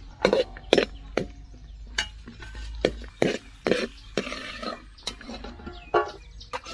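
Metal spoon stirring in a pan of ghee and cashews, clinking and scraping against the pan in irregular knocks about twice a second.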